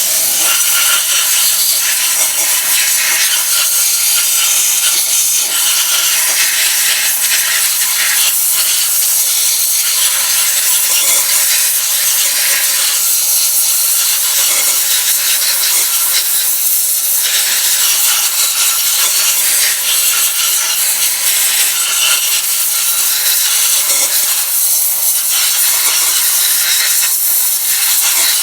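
Media blast gun firing crushed walnut shells with compressed air against an aluminum cylinder head: a loud, steady hiss that swells and dips slightly as the nozzle moves. The blast is knocking the carbon deposits off the head's metal surface.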